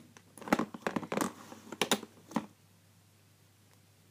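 About seven sharp clicks and rustles as rubber loom bands and their plastic clip are handled and pulled, stopping about two and a half seconds in.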